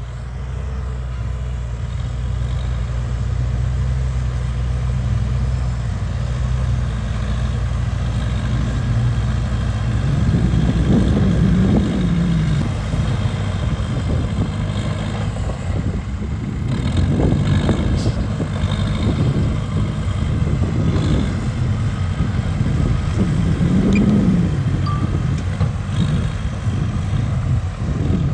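Diesel engine of a Cat D3K2 XL crawler bulldozer running steadily, then working under load from about ten seconds in, its note rising and falling several times as it pushes dirt.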